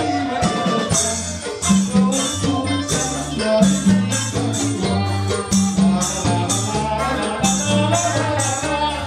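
Live dance music from a band with keyboard and electric guitar: a steady beat of about three strokes a second over a repeating bass line.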